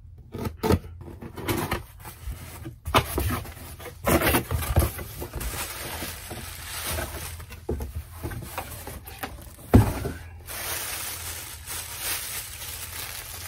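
A cardboard shipping box is opened and handled: flaps rub and scrape amid irregular handling noise, then a jersey in a plastic bag is pulled out with crinkling plastic. A sharp knock about ten seconds in is the loudest sound.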